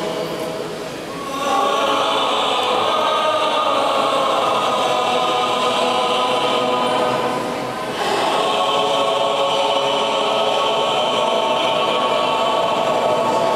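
Choir singing Greek Orthodox Byzantine chant, with long held notes. One phrase swells in about a second and a half in; a second begins about eight seconds in after a short dip.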